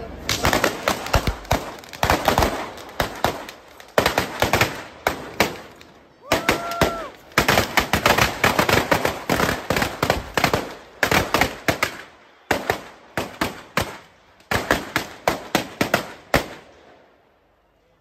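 Firecrackers set off along a lit fuse rope, a Fallas traca, going off in long, rapid rattling runs of bangs with a couple of brief pauses, then stopping suddenly near the end.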